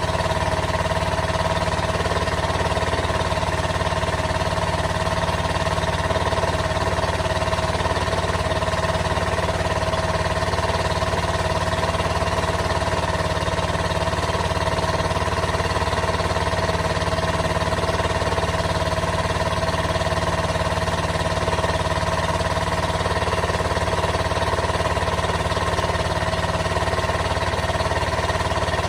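Caterpillar D13000 six-cylinder diesel engine running at a steady, even speed.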